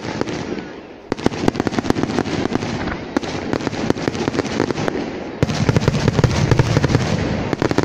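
Aerial fireworks going off: a dense crackle of many quick pops from about a second in, growing louder with a deeper rumble of shell bursts about two-thirds of the way through.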